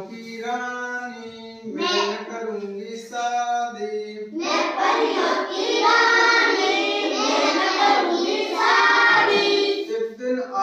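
Children singing a Hindi children's song in a classroom. A thin line is sung first; about four seconds in, a louder chorus of children's voices joins in.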